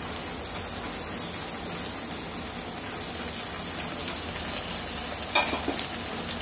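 Chopped bitter gourd peels and crushed seeds frying in hot oil with browned onions in a kadai: a steady sizzle, with a short knock about five seconds in.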